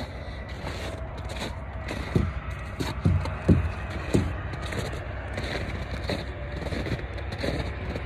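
Footsteps crunching on icy pavement at a walking pace over a steady low engine rumble, with a few louder thumps and scrapes about two to four seconds in.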